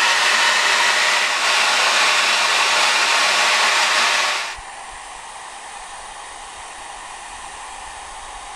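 Handheld hair dryer running: a loud, steady rush of blown air, aimed at a pan to melt coconut oil. About halfway through it drops abruptly to a much quieter steady hiss.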